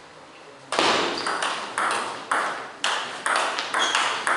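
Table tennis rally: the celluloid ball clicking sharply off bats and table in a quick, even exchange of about four hits a second, starting under a second in, each click ringing briefly in the hall.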